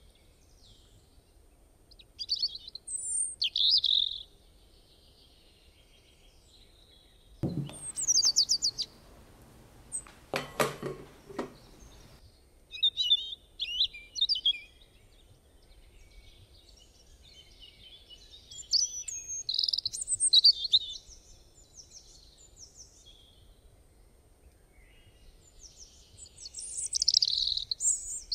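Songbird song from a sound-effect recording, in short bursts of high chirps and trills every few seconds, with the loudest phrases near the middle and toward the end.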